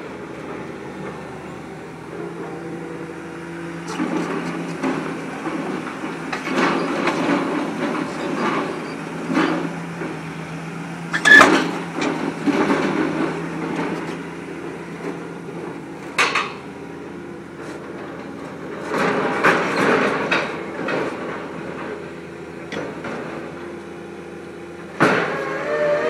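MAIT HR130 rotary drilling rig at work. Its engine runs steadily under a string of metallic clanks and knocks from the drilling bucket and kelly bar, the loudest about eleven seconds in. Near the end there is a sharp knock and the engine note rises.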